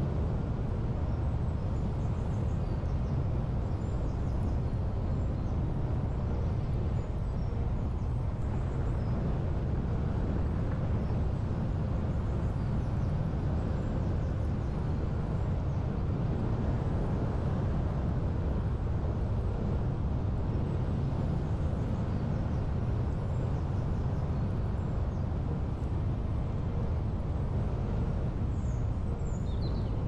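A car driving, heard from inside the cabin: its engine and tyres make a steady low rumble of road noise.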